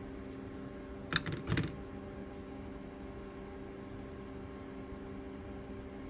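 Two or three small clicks close together about a second in, as hook-clip test leads are handled on a capacitor and the component tester is set testing. A steady low hum runs underneath.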